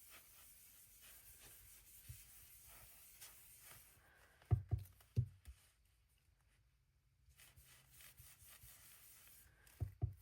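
Faint scratchy brushing of a blending brush swiped lightly over cardstock to lay on ink, with a few soft low thumps about four and a half seconds in and again near the end.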